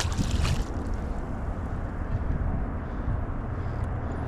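Steady wind noise on the microphone: a continuous low rumble with a hiss above it, and a short rustle at the very start.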